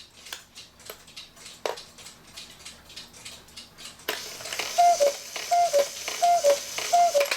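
E. Schmeckenbecher cuckoo clock ticking, then about four seconds in the strike releases and the bellows and pipes give four two-note cuckoo calls, each a higher note dropping to a lower one, over a hiss of air from the bellows. The calls sound now that extra weight has been added to the bellows tops to work the whistles.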